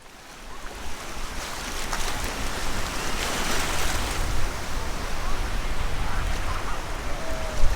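Surf washing onto a sandy beach: a steady rush of waves with an uneven low rumble underneath, fading in at the start.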